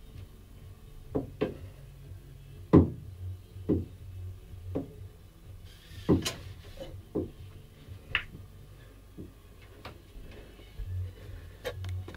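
Scattered knocks and creaks from a doorway pull-up bar and its frame as a man hangs and pulls on it by his fingers. A sharp knock about three seconds in is the loudest, and there are several quick clicks near the end.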